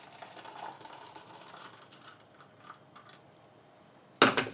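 Faint hiss, then a single sharp knock about four seconds in, as of a hard object set down on a counter.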